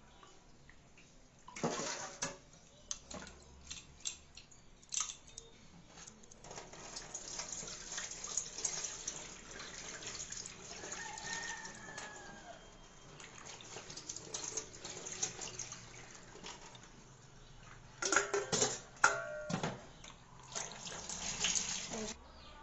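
Tap water running into a stainless-steel kitchen sink as leafy greens are rinsed in steel bowls, with a few splashes early on and a cluster of clinks and clatters of steel bowls and a strainer near the end.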